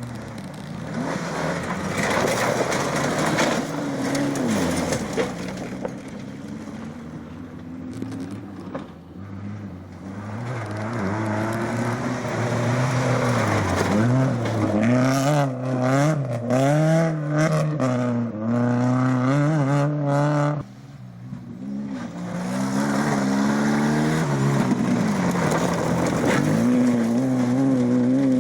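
Rally cars driven hard on a special stage, engines revving up and dropping back through gear changes. The sound cuts off suddenly about 20 seconds in, then another engine builds revs again.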